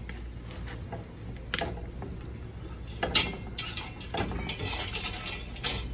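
Metal tongs and a whole steamed mud crab clinking and scraping against a stainless steel pot and its wire steaming rack as the crab is lifted out, with about four sharp clinks among softer rattling.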